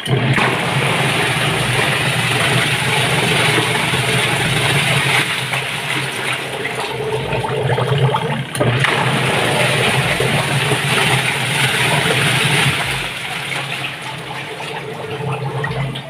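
Sharp ESW500 single-tub washing machine running, its agitator churning the water hard over a steady motor hum. Its worn drive belt has been turned inside-out to regain grip, and the wash now spins very strongly ('sobrang lakas'). The churning dips briefly about halfway through and eases off slightly near the end.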